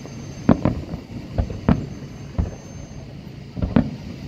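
Aerial firework shells bursting: about seven irregular bangs, some in quick pairs.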